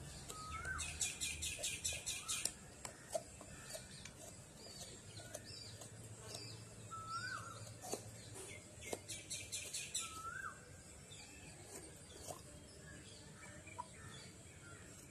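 Small birds chirping: a short rising call repeated every few seconds, scattered high notes, and two bursts of rapid high trilling, the louder one about a second in.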